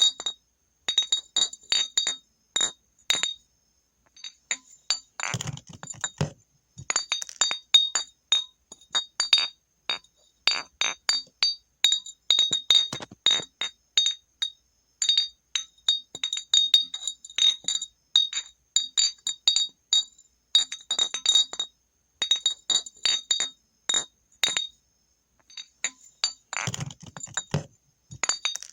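A glass bottle is clinked again and again in quick, irregular runs of sharp taps, each ringing on the same few high, bell-like tones. Twice there is a heavier, longer clattering knock with more low body.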